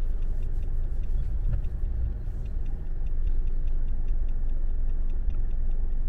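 Inside a car creeping through heavy traffic: a steady low rumble of road and drivetrain, with a light, even ticking about three times a second, the turn signal clicking.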